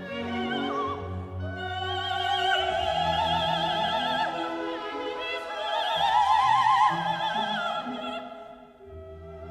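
Operatic singing: a high voice with a wide vibrato over classical orchestral accompaniment. The voice swells to its loudest held note about six seconds in, then falls away near the end.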